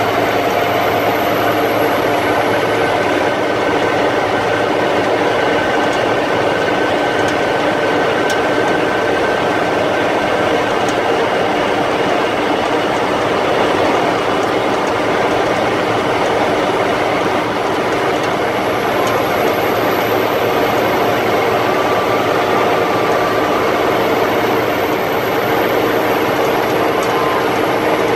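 M35A2 two-and-a-half-ton army truck driving at a steady speed, heard from inside the cab: its LDT-465 multifuel turbo-diesel engine and drivetrain make a loud, steady running noise with several whining tones over it.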